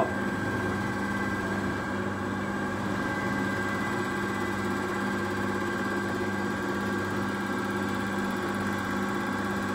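Common-rail diesel injector test bench running an injector test, with a steady even hum. It is in the back-leak measurement step of the test.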